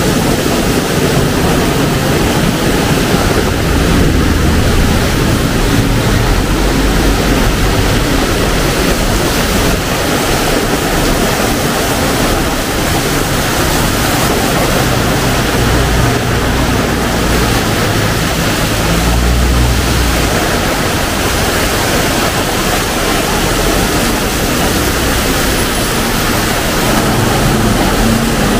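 Heavy rain pouring down steadily in a loud, even hiss, with a low rumble swelling and fading underneath at times.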